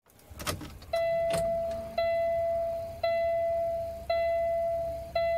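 Peterbilt 579 dashboard warning chime sounding as the ignition is switched on: a clear electronic tone repeating about once a second, five times, each ring fading before the next. A couple of faint clicks come just before the first chime.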